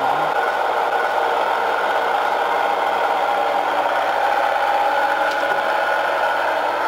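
Three-phase induction motors running steadily off a single-phase 220 V supply without a capacitor, one motor spun up to act as phase generator for the other: an even, continuous motor hum.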